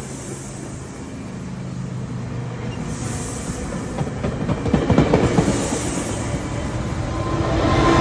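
COASTER commuter train's bilevel passenger cars rolling past with a steady rumble, the wheels clicking and knocking over the rail joints about halfway through. Near the end the Siemens Charger diesel locomotive's engine hum grows louder as it comes by.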